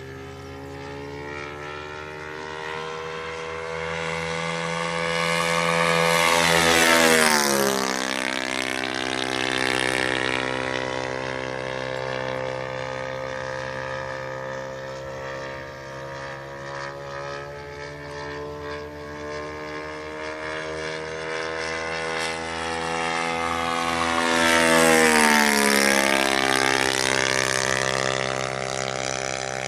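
Radio-controlled P-40 Warhawk model plane making two low passes. Its propeller drone grows louder, drops sharply in pitch as the plane goes by, then fades. This happens about seven seconds in and again about twenty-five seconds in.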